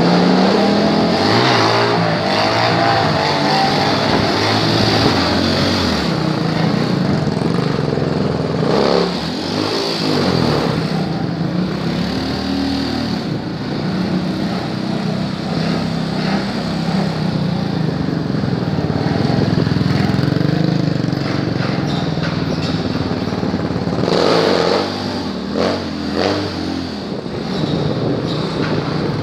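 Small motorcycle engines running and revving, pitch rising and falling with the throttle as the bikes are ridden on the back wheel in wheelies.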